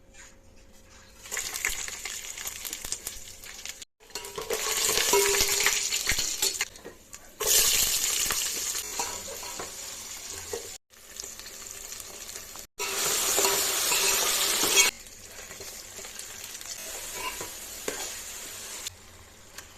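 Food frying in hot oil in a cooking pot for chicken biryani: a steady sizzle in several stretches that stop abruptly a few times. It is loudest in the middle and settles to a quieter sizzle for the last few seconds.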